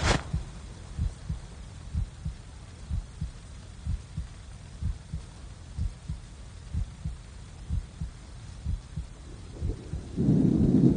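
Slow heartbeat-style double thumps, about one pair a second, after a sharp hit at the start. A loud low rumble swells in about ten seconds in.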